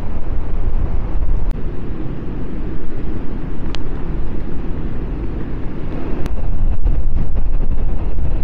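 Wind buffeting the microphone: a loud, gusting low rumble that rises and falls.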